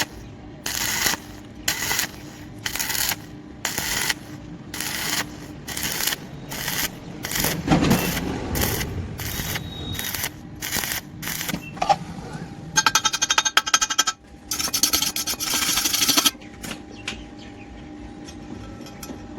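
Stick welding arc crackling and hissing in short, evenly spaced pulses, about one every two-thirds of a second, as the arc is struck and broken over and over. Near the end of the pulses it runs as a longer continuous crackle for about three seconds, then dies away to faint ticking.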